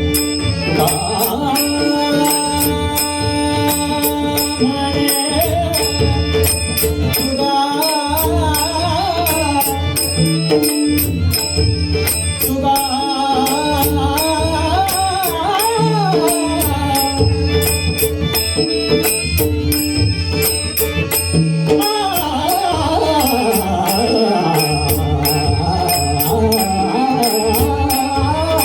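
Marathi devotional abhang (bhajan) being sung: a male voice holds long, ornamented notes over a steady drone, with percussion keeping an even beat.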